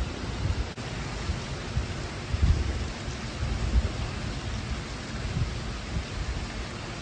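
Heavy typhoon rain, a steady hiss, with wind gusting on the microphone in irregular low rumbles, strongest about two and a half seconds in.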